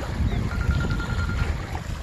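Wind buffeting the microphone outdoors, an uneven low rumble, with small waves at the water's edge. About half a second in, a faint, high, rapidly pulsing tone sounds for about a second.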